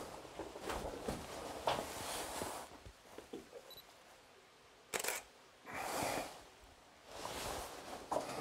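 Handling and movement noises of a caver and his camera: irregular rustles and scrapes, with one sharp click about five seconds in.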